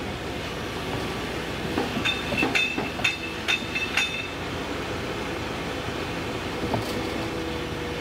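CAT 305.5E mini excavator's diesel engine running steadily while it digs in a creek bed, with a quick run of sharp clanks and knocks from the bucket and arm about two to four seconds in and one more knock near the end.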